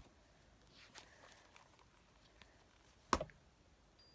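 Hardcover picture book being handled and shut: a few faint taps and rustles, then one sharp thump about three seconds in as the cover closes.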